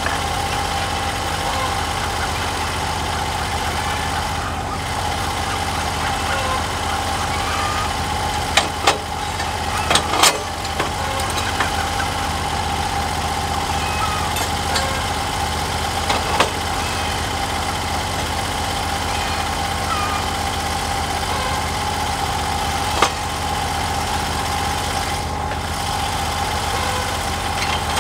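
Engine of a Norwood HD36V2 portable bandsaw mill running steadily at a constant pitch, with a few sharp clicks or knocks now and then.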